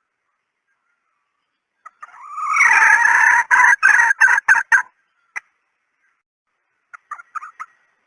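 Female red junglefowl calling. A drawn-out rising cackle starts about two seconds in and breaks into a quick run of clucks, followed by a single cluck and then a few short clucks near the end. This is a hen call of the kind played as a decoy to lure wild junglefowl.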